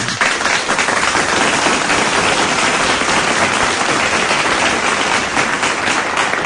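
Crowd applause: dense, steady clapping.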